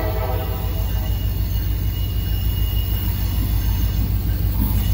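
Diesel freight locomotive approaching slowly with its train, a steady low rumble, with a faint high squeal for a couple of seconds in the middle.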